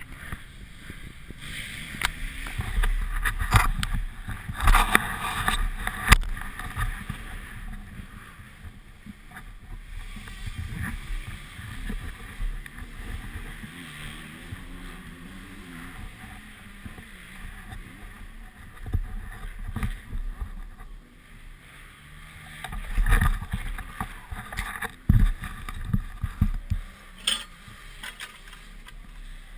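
Wind on a helmet-mounted camera with handling knocks, footsteps and scattered thumps. Near the end comes the kickstarter of a Honda CR 125 two-stroke motocross bike being kicked, with no sign that the engine catches.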